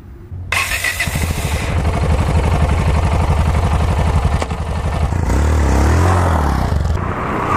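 Yamaha XT660Z Ténéré's single-cylinder engine running hard, coming in about half a second in with a fast, even firing beat. Around the fifth second the revs rise and fall as the rear wheel is spun in loose dirt.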